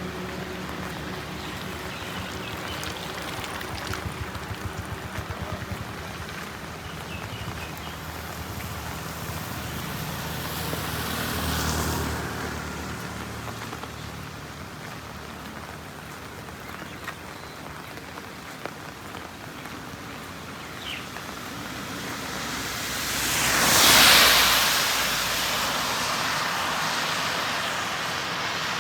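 Heavy monsoon rain pattering steadily on a wet highway while vehicles pass on the wet road, their tyres hissing through the water. One vehicle passes faintly near the middle, and a louder one swells up and fades away about two-thirds of the way through.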